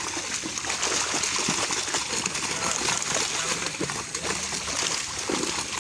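Continuous water splashing and churning from fish thrashing at the surface beside a net line being hauled in.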